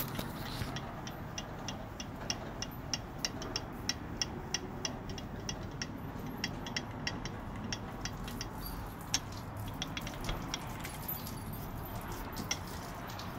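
Hunter BL50 brake lathe's feed mechanism being wound by hand, giving sharp metallic clicks at a steady rate of about three a second that thin out to occasional clicks after about eight seconds.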